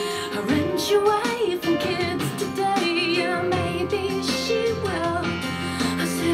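Recorded pop song: a woman's voice singing with vibrato over a plucked harpsichord-like keyboard, kick drum and percussion.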